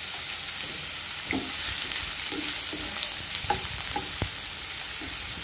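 Chopped onion sizzling in hot sunflower oil in a kadai on high flame, with a steady hiss. From about a second in, a wooden spatula scrapes and knocks against the pan as the onion is stirred.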